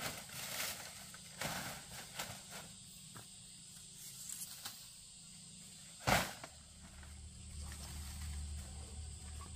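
Dry leaf thatch rustling and crackling as it is handled, then a single sharp knock about six seconds in, after which a low steady hum sets in.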